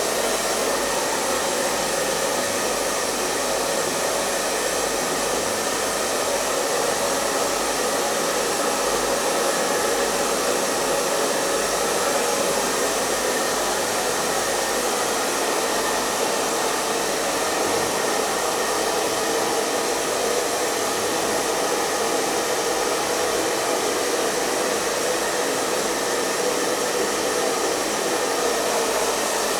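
Hair dryer running steadily: an even rush of blown air and motor noise that doesn't change.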